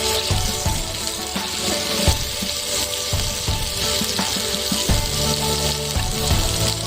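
Food frying in hot oil in a pan, a steady sizzle with a few clicks, with background music playing over it.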